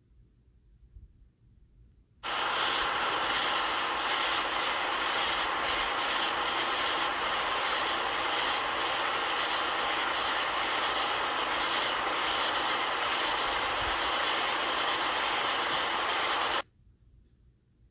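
Steady, even hiss from the soundtrack of the night-sky clip being played back on the phone. It cuts in suddenly about two seconds in and stops just as suddenly near the end, as playback starts and stops.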